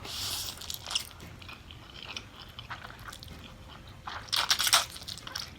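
Crunchy biting and chewing of a cheese dog coated in crushed Flaming Hot Funyuns, in several crisp bursts. The loudest bite-crunch comes about four and a half seconds in.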